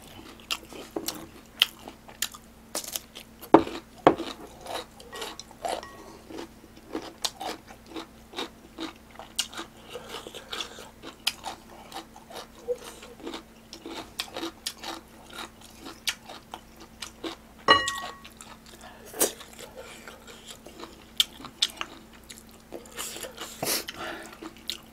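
Close-miked eating of ramen and fried pork: biting and chewing with crunchy bites and many small clicks of chopsticks on the dishes. About eighteen seconds in there is a single ringing clink against a bowl, over a faint steady hum.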